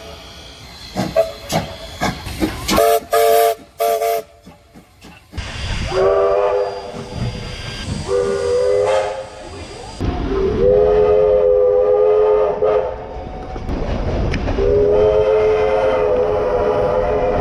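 New South Wales Railways steam locomotive whistles: a run of short toots, then four long blasts of several tones together, each sliding slightly up in pitch as it opens, over a steady hiss.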